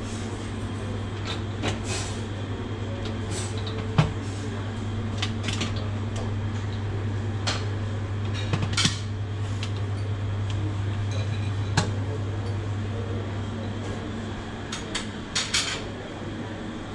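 Hinged lids of stainless-steel buffet chafing dishes being lifted and set back, giving scattered metal clinks and knocks, the sharpest about four seconds in and near twelve seconds. A steady low hum runs underneath.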